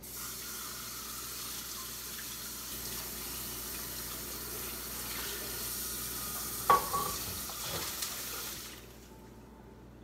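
Kitchen faucet running water into the sink, switched on at the start and shut off about nine seconds in. About two-thirds of the way through there is a sharp clank with a brief ring, then a few lighter knocks.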